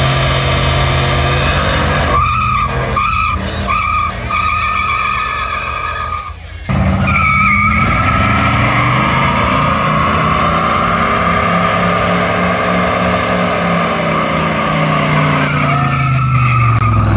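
Two burnouts. First a pickup truck's engine revs while its rear tyres spin and squeal, in short chirps and then a steady squeal. About seven seconds in, after a cut, a 1970s Oldsmobile Cutlass's engine is held at high revs with its rear tyres spinning and squealing steadily, and the revs drop near the end.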